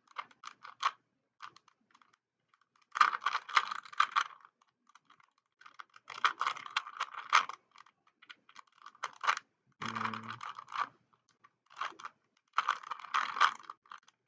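Rubik's Cube being turned by hand: bursts of rapid plastic clicking and clacking as the layers are twisted in quick sequences, with short pauses between the bursts.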